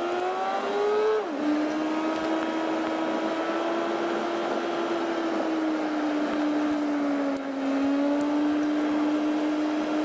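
Car engine heard from inside the cabin while driving. Its pitch climbs and then drops sharply about a second in, as at a gear change, and then holds nearly steady at cruising speed.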